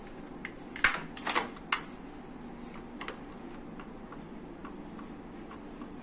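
Plastic clicks and knocks from a Mastela bassinet's frame and height-adjustment latches as it is handled: a sharp click about a second in, a brief rattle just after it and another click soon after, with faint ticks in between.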